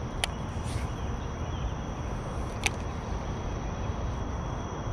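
Wind buffeting the microphone as a steady low rushing noise, with two brief sharp clicks, one about a quarter second in and one past the middle.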